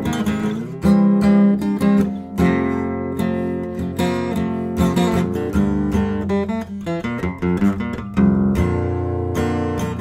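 Acoustic guitar played solo, strummed chords and picked notes at a steady pulse, with no singing.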